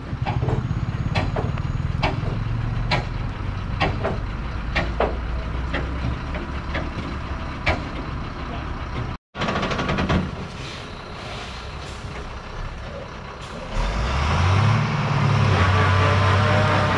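Heavily loaded Ashok Leyland 12-wheel lorry's diesel engine running at low revs, with sharp clicks about once a second over the first half. After a break there is a short hiss, then about two seconds before the end the engine revs rise and hold higher as the lorry pulls through the hairpin under load.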